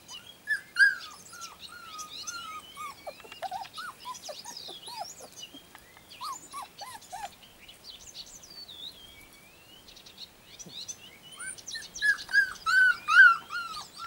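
Four-and-a-half-week-old puppies yipping in short high-pitched calls as they play-fight, with a louder run of rapid yips near the end. Birds chirp in the background.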